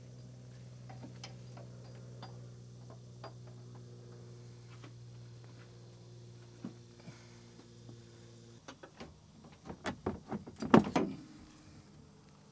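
Plastic and metal clicks and knocks as the oil filter is worked loose and pulled out through the wheel well: light scattered clicks at first, then a quick run of sharper clacks in the last few seconds, loudest just before the end. A steady low hum stops about two-thirds of the way through.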